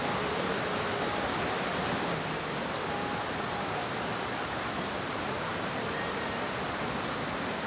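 Swollen mountain stream rushing steadily, its flow strong from rainy-season rains.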